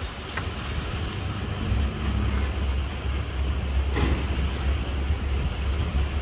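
A river ferry's engine running with a steady low rumble while the boat is under way, with wind on the microphone. There is a short knock about four seconds in.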